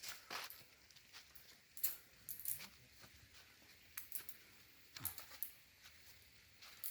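Faint, scattered clicks and crackles, with a few sharper snaps about two seconds in and around five seconds in.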